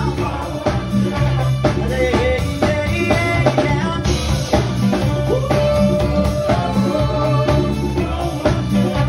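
Live funk band playing a steady groove on drum kit and bass guitar, with a trumpet, saxophone and trombone horn section and keyboard.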